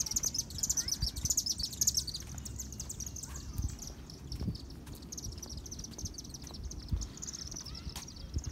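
Birds chirping in a rapid, high chatter, busiest in the first couple of seconds, with scattered dull thuds of footsteps on pavement.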